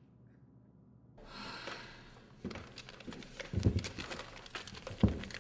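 Footsteps and knocks on a wooden stage platform: a run of dull thuds, the heaviest about three and a half and five seconds in, over a faint hiss of room noise that starts after a second of near silence.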